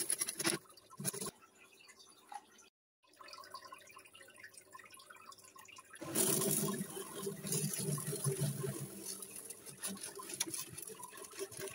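Small aquarium gravel pouring from a bag into a glass fish tank: stones landing on a layer of gravel as many fine clicks running together, loudest from about six seconds in, with a few short spills near the start.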